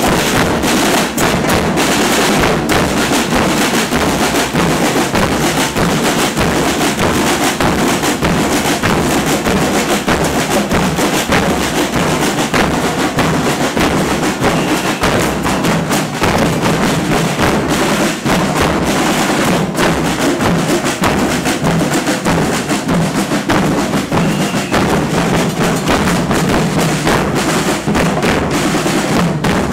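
Carnival percussion troupe drumming loud, continuous rapid rhythms on bass drums and snare-type drums, with no break.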